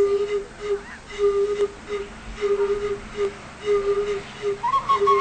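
Home-made wind instruments built from bicycle parts playing a short riff that repeats over and over on one note. A higher, flute-like melody joins in near the end.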